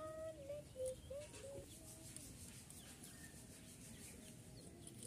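Domestic hen clucking, a short run of brief calls in the first couple of seconds, faint, with light scraping from small fish being cleaned with a knife.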